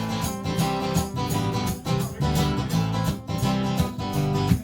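Acoustic guitar strummed in a steady rhythm, an instrumental passage between sung verses of a live song.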